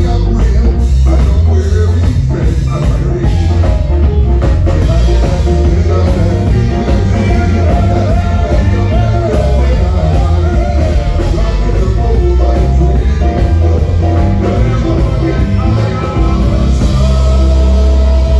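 Live ska band playing: bass, electric guitar, keyboard and a horn section of trumpet, trombone and saxophone, with singers on microphones, loud and continuous.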